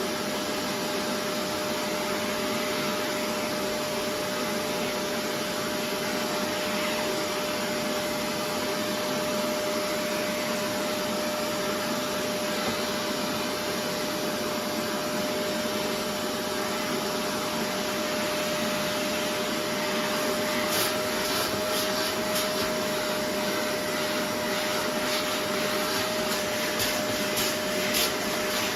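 Upholstery cleaning machine running steadily while washing a chair: a continuous suction-motor noise with a steady hum, and a scatter of short clicks and crackles in the last third.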